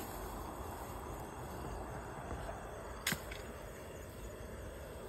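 Steady night-time hiss of insects in grassland, with one sharp click about three seconds in.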